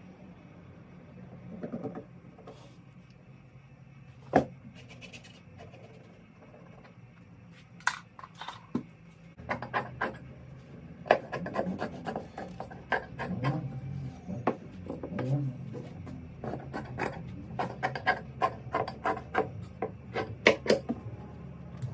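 Hand work on plastic car interior trim on a bench: scattered knocks and clicks at first, then from about halfway a busy run of scraping, rubbing and tapping over a steady low hum.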